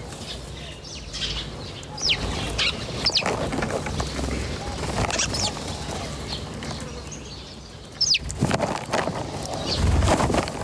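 Small birds chirping in short, quick downward-sweeping calls, scattered through. Near the end come bursts of rustling noise with a low thump, the loudest sounds present.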